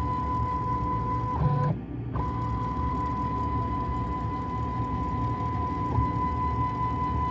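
CNC machine's stepper motors driving a drag knife across kapton tape: a steady high whine over a low hum. About one and a half seconds in the whine drops in pitch, cuts out for a moment, then resumes, with a small knock near the end.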